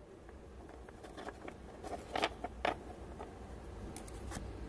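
Trading cards being handled by hand: soft rustling and light clicks as cards are slid apart and stacked, with two louder card snaps a little past two seconds in and a quick run of clicks near the end.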